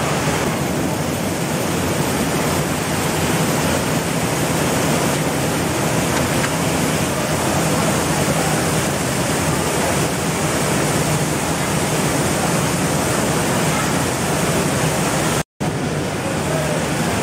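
Rice-milling machinery running: a loud, steady noise with a low hum underneath. It cuts out for an instant near the end.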